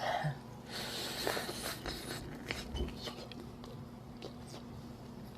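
Crisp crunching of fried chicken being bitten and chewed. A loud crackly crunch comes in the first couple of seconds, followed by scattered smaller crunches and clicks.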